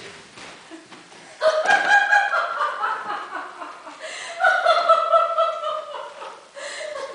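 A human voice imitating a hen's cackle, loud, starting about a second and a half in as three long drawn-out calls.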